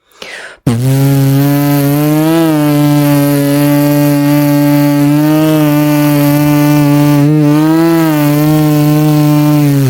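Bee buzzing sound effect: one long, steady, low buzz that starts about a second in, its pitch wobbling slightly a couple of times.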